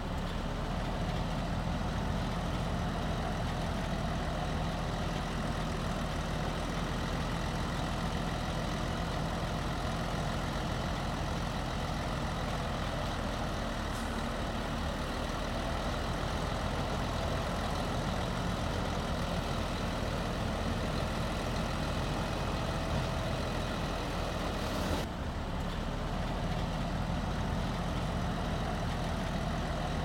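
Heavy diesel engine of earthmoving machinery running steadily with a low drone. There is a brief break and change in the sound about five seconds before the end.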